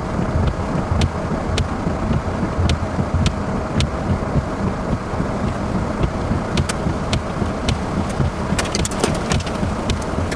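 Strong storm wind buffeting the microphone in a steady low rumble, with scattered sharp ticks throughout that cluster briefly near the end.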